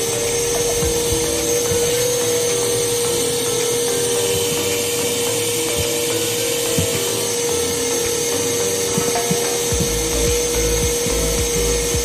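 Vacuum cleaner motor running steadily at full speed, with a steady mid-pitched whine and a high whistle over the rush of air; a lower rumble joins about ten seconds in.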